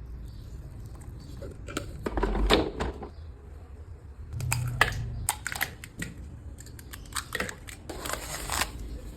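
Food-preparation handling sounds: a series of sharp clicks and knocks with bursts of rustling and crinkling, loudest about two seconds in, around five seconds in and near the end, over a steady low hum.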